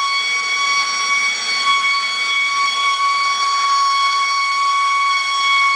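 Hand-held gas torch burning with a steady hiss and a constant high whistle, heating a car body panel for tinning before lead filling.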